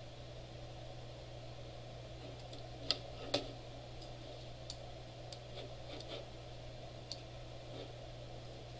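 A handful of sharp, irregular computer mouse clicks over a steady low hum, the two loudest close together about three seconds in.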